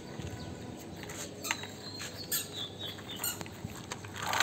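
Light scattered clicks and rustling, as of small plastic toy vehicles being handled, with a faint high tone stepping down about two to three seconds in.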